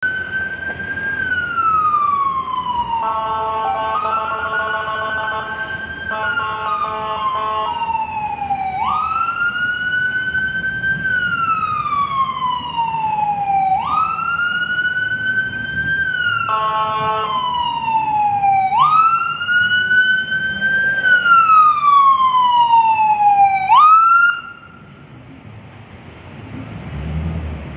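Emergency siren of a Philadelphia Fire Department ambulance wailing, each cycle a quick rise and a slow fall lasting about five seconds, with a long steady horn blast a few seconds in and a short one past the middle. The siren cuts off suddenly a few seconds before the end, leaving a low engine rumble as the ambulance approaches.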